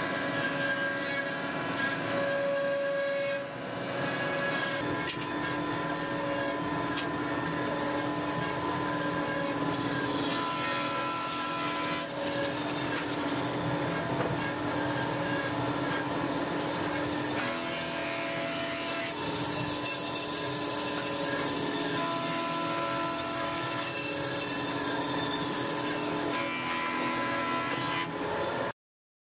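Woodworking machinery running with a steady hum of several tones; from about eight seconds in, a band saw cuts wood, adding a high hiss that eases off a couple of seconds before the sound cuts off abruptly.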